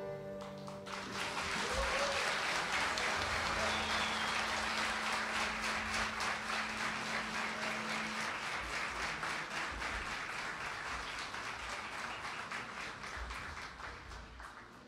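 A concert audience applauding, the clapping swelling about a second in after the last notes of the band die away, then thinning out near the end.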